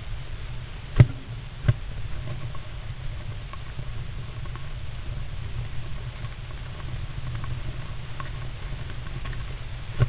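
Great spotted woodpecker moving and preening inside a wooden nest box: light scratching and scrabbling of claws and feathers on the wood, with two sharp knocks on the box about a second in and shortly after, over a steady low rumble.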